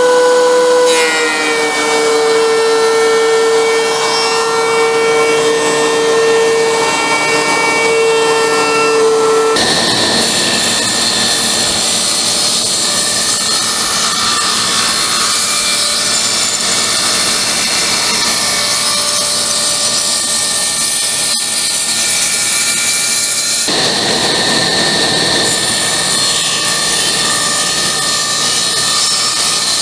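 Benchtop thickness planer running with a steady motor tone for about the first ten seconds. Then comes a sudden change to a table saw ripping a hardwood handle blank, its blade cutting through the wood, with a couple of abrupt shifts between passes.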